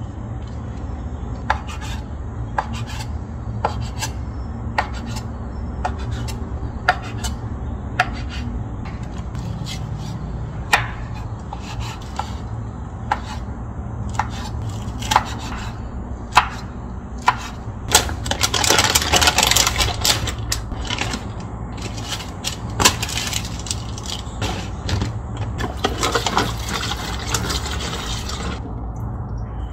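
Rice cakes and wooden skewers being handled: light taps and clicks about once a second, then stretches of rubbing and scraping, over a steady low background hum.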